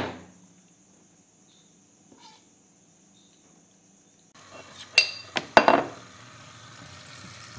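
Kitchen tap running into a stainless steel sink, starting a little past halfway through, with two or three sharp clinks of dishes and utensils.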